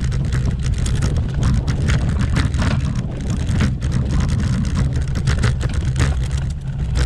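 Bicycle jolting and rattling over rough cobblestones: a loud, constant low rumble with rapid, irregular clattering.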